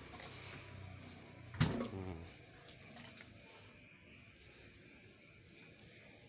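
Crickets chirping steadily in a fast, pulsing trill. A low hum fades out in the first two seconds, and a single sharp knock with a short ringing tail comes about a second and a half in.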